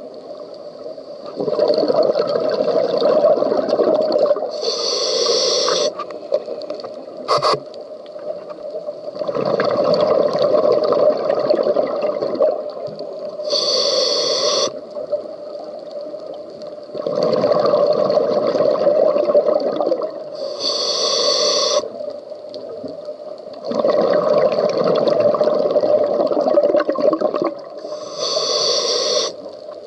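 Scuba diver breathing through a regulator underwater: a short hissing inhale, then a longer rush of exhaled bubbles, repeating about every seven or eight seconds, four breaths in all.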